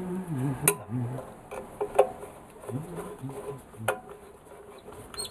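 Metal hand tools clicking against metal three times, sharp single clinks, while a man hums or grunts low under his breath.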